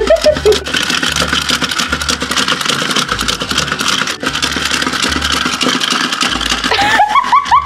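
Small battery-powered motors and plastic gears of walking toy puppies running, a rapid whirring clatter of clicks as the toys waddle.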